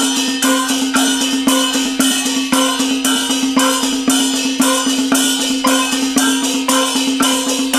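Chinese gong-and-drum (luogu) ritual percussion: gongs and cymbals struck in a steady beat of about two strokes a second over a continuous ringing tone. This is music played for Chinese deity rites such as inviting the gods.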